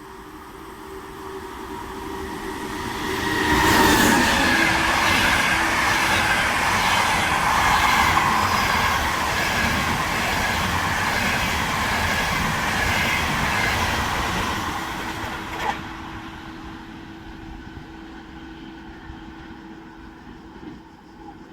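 Train passing through the station: the sound of its wheels on the rails builds over about three seconds, stays loud for about eleven seconds, then fades away. A sharp click comes near the end of the pass.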